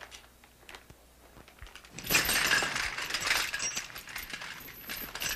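A burst of clattering and jingling, like small hard objects rattling and clinking together, starting about two seconds in and carrying on to the end.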